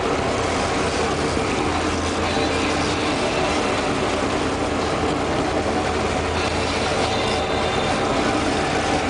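A fishing boat's engine running steadily at trolling speed, a constant drone with a few steady hum tones, under the rush of the churning wake.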